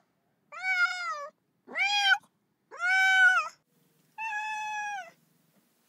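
A cat meowing four times, about one call a second, each short call rising and then falling in pitch; the last meow is held at an even pitch.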